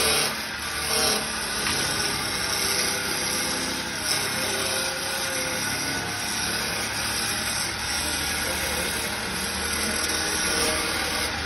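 Wood lathe running steadily as a turning tool is held against the spinning wooden furniture-leg blank: a motor hum under the scraping hiss of the tool on the wood, slightly louder in the first second or so.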